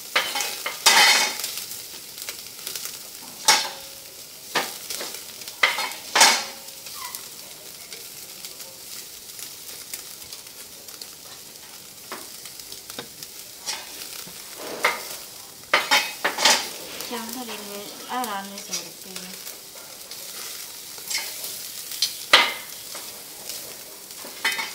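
Meat sizzling on a wire grill rack over a clay charcoal stove, with a steady hiss. Repeated sharp clicks and scrapes of metal tongs against the rack and meat break in as the pieces are turned.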